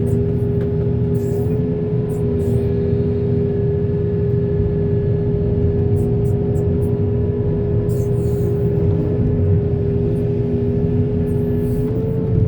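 Diesel engine of heavy earthmoving machinery running steadily under load, with a slight rise in pitch near the end.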